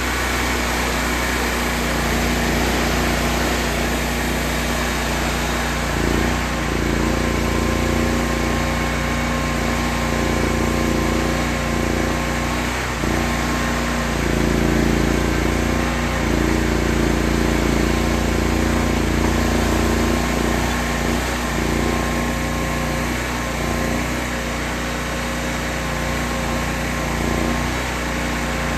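An engine running steadily under varying load, its note shifting a few times.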